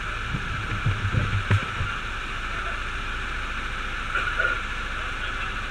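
Muffled voices in the first two seconds, and one brief one about four seconds in, over a steady hiss.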